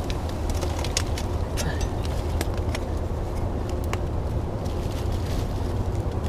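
Steady low rumble of wind on the microphone, with scattered light clicks and taps throughout.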